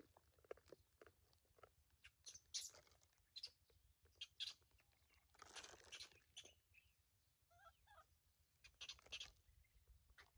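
Faint, irregular crackling and rustling like dry leaves and twigs being snapped and brushed, with a couple of louder rustles about five and a half and nine seconds in. A few faint short chirps come about eight seconds in.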